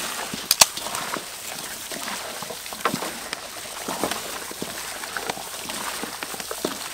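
Beer pouring from a can into a metal bowl of raw chicken legs, with the wet squelch and splash of plastic-gloved hands mixing the marinade. A couple of sharp clicks sound near the start.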